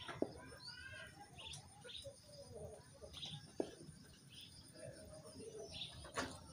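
Faint bird calls: short scattered chirps and calls from the yard's birds, with two sharp clicks, one just after the start and one about three and a half seconds in.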